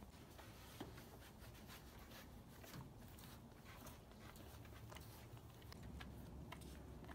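Moose licking road salt off a pickup truck's tailgate: faint, irregular licking and rubbing clicks.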